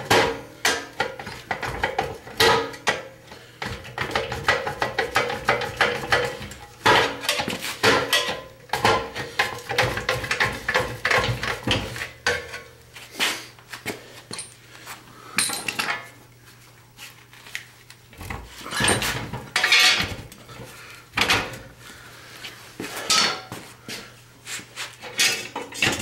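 Hammer blows on a rusted-on steel brake drum of a Ford 9-inch rear axle: irregular metallic clanks and knocks, several a second, with a couple of short lulls in the second half. The drum is rusted to the axle and the blows are knocking it loose.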